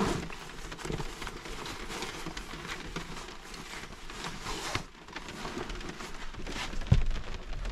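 Rustling and handling of a fabric backpack as a tablet in its case is pulled out, over a steady hiss of rain falling on the truck's camper shell. A single thump comes about seven seconds in.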